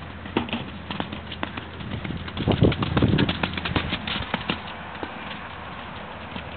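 Hoofbeats of a Connemara pony ridden over jumps: a quick run of sharp strikes, with a louder low rush of sound about two and a half seconds in. The strikes fade out after about four and a half seconds.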